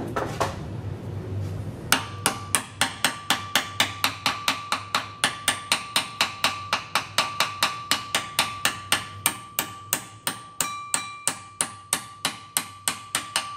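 Hammer tapping a steel punch to drive the retaining pin into a hand wheel's hub: a long run of quick, even metal-on-metal taps, about four a second, each with a short metallic ring. The tapping starts about two seconds in, after some light handling noise.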